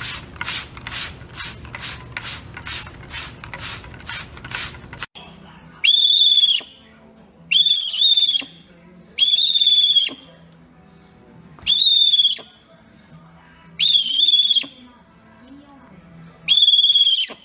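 Snowy owl giving loud, high-pitched whistling squeals, six calls about two seconds apart, each rising and wavering before it breaks off. They start about six seconds in. Before that, an even rhythmic swishing of about three strokes a second runs for about five seconds and then stops.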